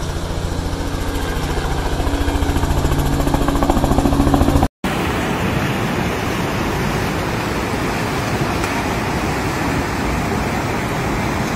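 Small helicopter flying low overhead with a rapid, steady rotor beat that grows louder, cut off abruptly about four and a half seconds in. Then a steady rushing noise of fast-flowing floodwater.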